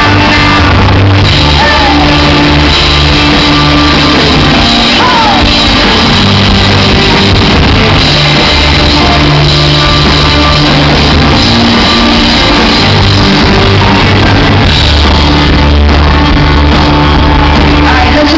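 Live rock band playing very loud: a woman singing and shouting into a microphone over drums, electric bass and keyboard, with held bass notes underneath.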